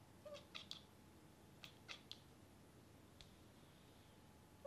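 Bengal cat giving short, high-pitched chirps and squeaks in quick runs of two or three, with a single chirp near the end.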